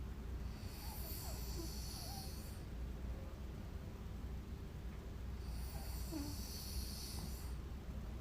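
A sleeping woman snoring through two slow breaths about five seconds apart. Each breath is a hissy rush of air lasting about two seconds, over a steady low rumble.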